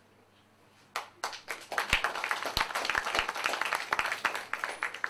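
Audience applauding: many hands clapping that start abruptly about a second in and thin to a few scattered claps near the end.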